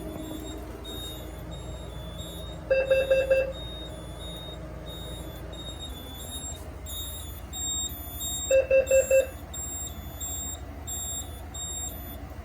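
Carbon monoxide alarm signal from a Notifier NFS2-640 fire alarm system: two rounds of four quick low-pitched beeps, about six seconds apart. This is the temporal-4 pattern that marks a CO alarm rather than a fire alarm.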